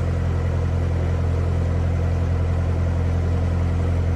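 Narrowboat engine running steadily while the boat cruises along the canal: a constant low hum.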